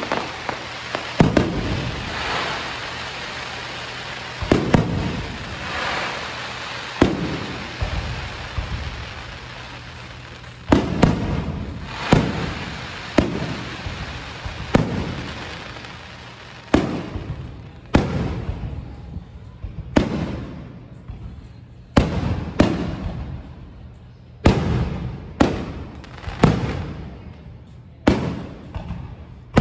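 Aerial fireworks shells bursting overhead: about twenty sharp booms, one every second or two, each trailing off. A hissing crackle fills the gaps in the first few seconds.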